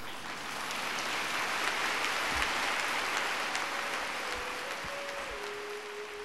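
Lecture audience applauding, the clapping thinning toward the end. About halfway through, a single steady held tone comes in and steps down slightly in pitch.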